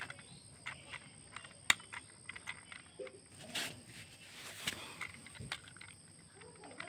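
Plastic toy train coaches being set on a plastic track and coupled by hand: scattered small clicks and taps, with one sharper click about two seconds in and a brief rustle of handling around the middle.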